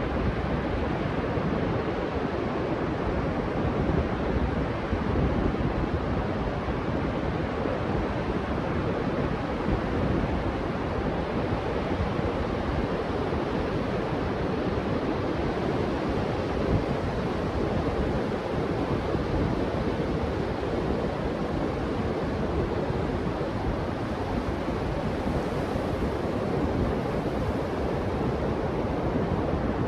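Ocean surf breaking steadily on the beach, mixed with wind on the microphone, as an even, unbroken rush with no distinct wave crashes.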